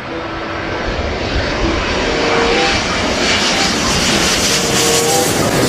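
Twin-engine jet airliner passing low overhead on landing approach, its engine noise growing louder over the first couple of seconds and then holding, with a faint whine among the rushing.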